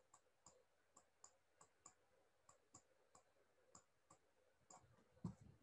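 Faint, irregular clicks of a stylus tip tapping on a tablet screen while writing by hand, about two to three a second, with a slightly louder knock near the end.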